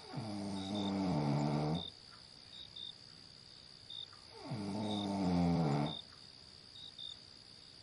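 A person snoring in two long, rasping breaths, a few seconds apart, each dropping in pitch. Insects chirp in short, regular pulses behind it.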